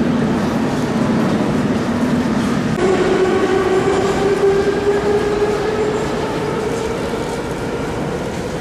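Metro train in the station: a steady rumble, with an electric motor whine that sets in about three seconds in and slowly rises in pitch.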